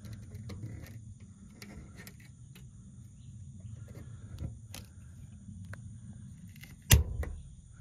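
Handheld cable-tie tensioning and cutting tool squeezed on a zip tie: scattered small clicks as it draws the tie tight, then one loud snap near the end as it cuts the tail off.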